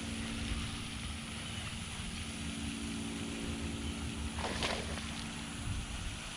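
Steady outdoor background noise: a low rumble with a constant low hum under it. A short sharp sound comes about four and a half seconds in.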